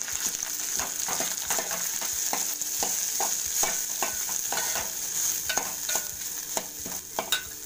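Cooked rice being stirred with a spoon into sautéed curry leaves in a hot stainless-steel pan: a steady sizzle with irregular scrapes and knocks of the spoon against the pan.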